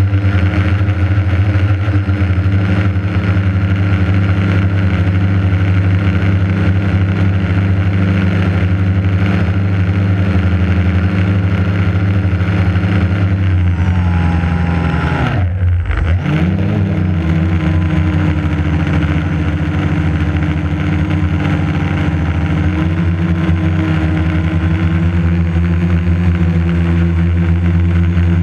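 Quadcopter's electric motors and propellers running at a steady pitch, heard from the onboard GoPro. About halfway through, the pitch drops sharply for a moment and then climbs back.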